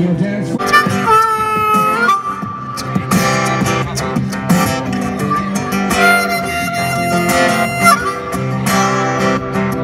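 Two acoustic guitars strumming a steady accompaniment while a harmonica plays a melody over them in long held notes.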